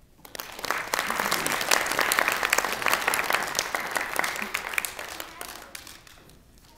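Audience applauding, many hands clapping: it starts suddenly, is strongest over the first few seconds, and fades out about six seconds in.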